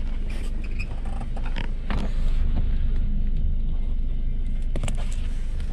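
Steady low rumble of a car's cabin, with scattered short clicks and rustles from handling a pen, paper and the cabin's plastic partition while a taxi receipt is signed.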